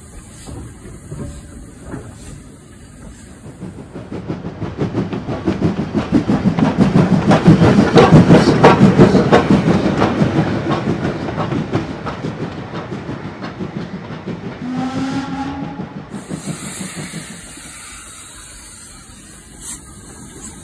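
Model railway train running past, its wheels clicking rapidly over the rail joints; the clatter builds to a peak about eight seconds in and then fades away. A brief whistle-like tone sounds about fifteen seconds in.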